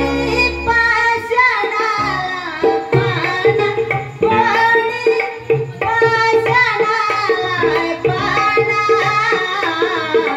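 Marathi devotional song: a solo voice singing an ornamented, gliding melody with tabla accompaniment over a steady held drone note.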